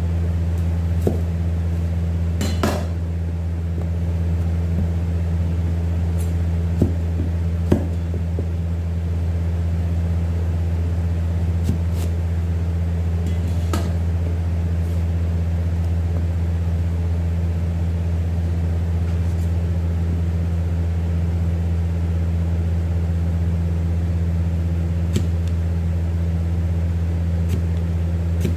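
Steady low mechanical hum of kitchen machinery. A few scattered knocks of a cleaver cutting a potato on a plastic cutting board sound over it.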